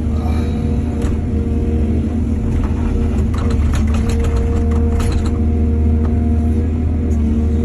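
Excavator's diesel engine running steadily. About three seconds in, a run of rapid clattering knocks lasts for roughly two seconds.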